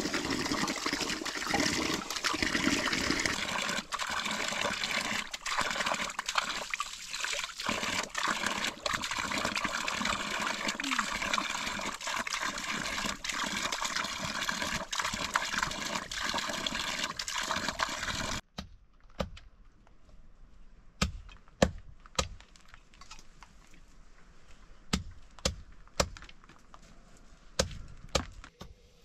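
Water pouring steadily from an open plastic pipe, which stops suddenly. A quieter stretch follows with about ten sharp, irregular knocks of a blade chopping herb stems against a wooden block.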